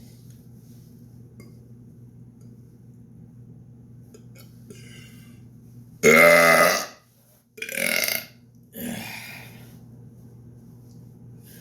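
Deliberate burps forced up from swallowed milk and air: a long, loud, pitched burp about six seconds in, then a shorter one a moment later. A fainter, breathier sound comes right after.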